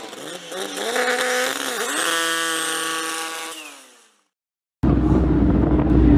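Racing car engine at high revs: its pitch dips and climbs once, then holds high and fades out falling away about four seconds in. After a brief silence, a loud low rumble cuts in abruptly.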